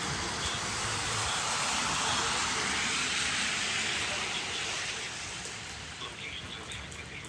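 Heavy storm rain and wind: a steady rushing hiss that builds over the first few seconds and eases after about five seconds.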